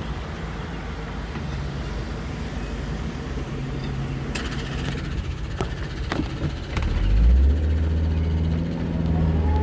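Car engine idling at a stop, then speeding up as the car pulls away about seven seconds in, with a few sharp clicks just before.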